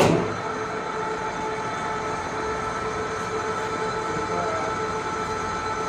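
Leblond Regal 15"x54" engine lathe switched on: the headstock spindle starts suddenly and runs steadily at 351 RPM, an even mechanical hum with a couple of steady whining tones from the gearing.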